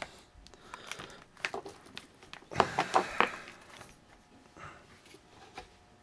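Quiet handling sounds from an upright vacuum cleaner's plastic body and hose: scattered light clicks, with a short cluster of knocks about two and a half to three and a half seconds in.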